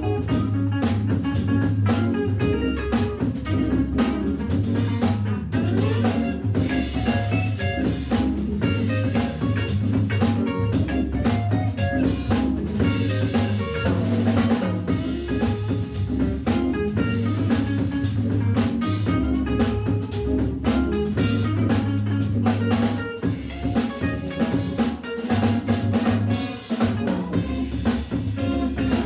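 Jazz organ trio playing, with the drum kit to the fore, snare and rimshot strokes over sustained low notes from the Hammond B3 organ.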